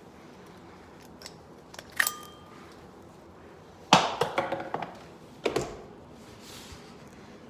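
Hard knocks and metallic clinks of tools and hardware being handled and set down: a sharp clink with a brief ring about two seconds in, a louder rattling clatter of several quick hits about four seconds in, and another knock shortly after.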